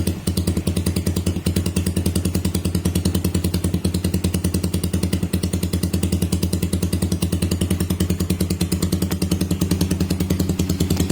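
Suzuki Raider 150's single-cylinder four-stroke engine idling steadily through an aftermarket Noo Lamlukka open-spec exhaust with an enlarged elbow, its exhaust beat a fast, even pulse.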